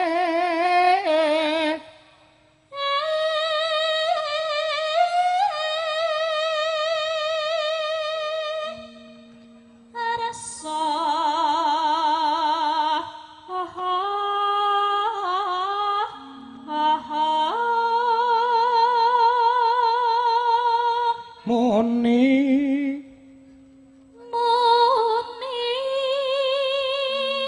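A Javanese sinden (female singer) singing long, slow phrases with a wide vibrato on the held notes, pausing briefly between phrases, over steady sustained instrumental notes.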